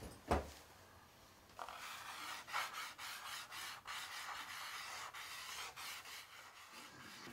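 A single sharp knock just after the start, then about five seconds of scratchy, rasping strokes from a writing tool drawn across a painted wall as a name is written in cursive.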